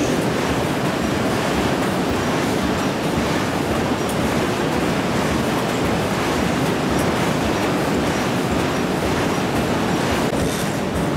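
Huatai HT1500P automatic die-cutting and stripping machine running, a steady dense mechanical noise.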